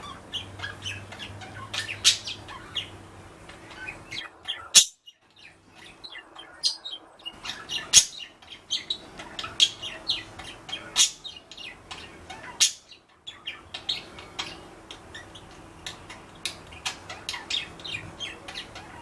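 Pet budgerigars chirping and chattering: a dense run of short, quick chirps with a few sharp, louder calls scattered through, and brief lulls.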